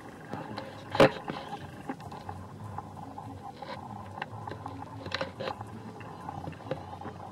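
Goats foraging on stony ground: scattered small clicks and crunches of hooves on loose stones and of plants being bitten off, with one sharp knock about a second in.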